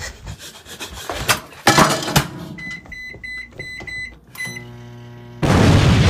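Some clattering, then a microwave oven's keypad beeping about six times in quick succession, and the oven humming as it starts up. Near the end a loud explosion blast cuts in and drowns everything.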